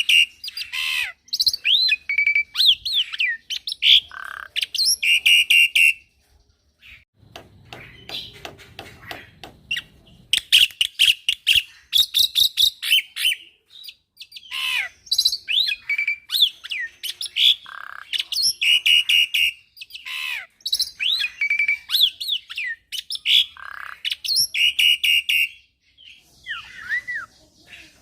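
A young black-winged starling (jalak putih) in full song: loud, varied phrases of harsh chirps, squawks and whistled slides, repeated every second or two and filled with imitated calls. About six seconds in it drops to a quieter stretch of soft clicks before the loud phrases return.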